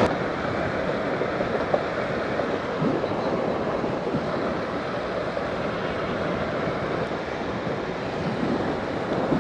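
Steady wind rushing over the microphone while riding a motorcycle, with the hum of the bike and road underneath.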